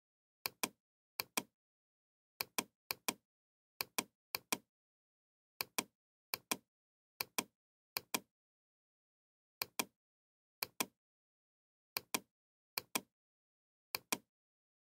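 Computer mouse button clicking: about fifteen sharp clicks, each heard as a quick press-and-release pair, at uneven gaps of roughly a second, with dead silence between.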